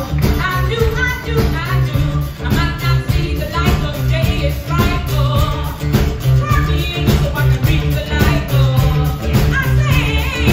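Live band playing a rock song with electric and acoustic guitars, bass and drums, with a steady beat.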